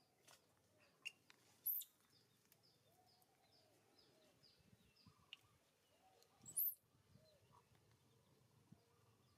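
Quiet outdoor background with small birds chirping: a quick run of short high chirps in the first few seconds. Two brief, much louder, very high squeaks stand out, one about a second and a half in and one about six and a half seconds in.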